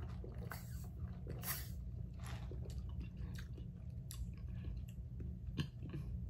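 A person sipping lemonade through a straw from a plastic cup, with two noisy sips in the first two seconds, then small clicking mouth sounds as he tastes it, over a low steady hum.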